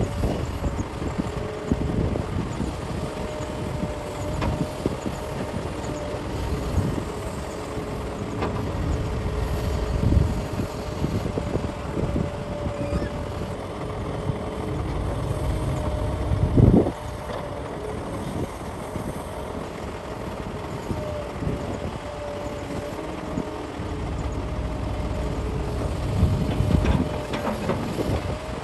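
Cat 6015B hydraulic mining excavator working, its diesel engine running under a steady hydraulic whine. A single loud crash comes a little past halfway.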